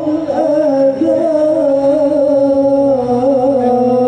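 Amplified singing: a single voice holds one long, wavering, drawn-out melodic line, which breaks off just after the end.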